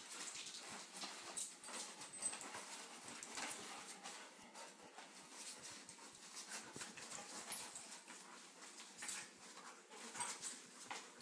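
Two dogs play-wrestling: a scuffle of many short, irregular clicks and scrapes from their paws and bodies, with dog noises mixed in.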